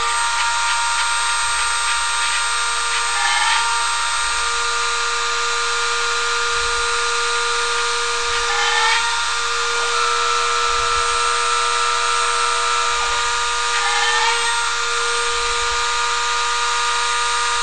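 Small CNC milling machine running a drilling cycle: a steady machine whine with several fixed tones over a hiss. Three times a brief rising whine comes as the axes rapid between holes.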